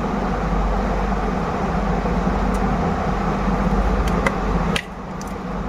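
Steady mechanical hum with a low drone, which drops off suddenly near the end, with a couple of light clicks just before the drop.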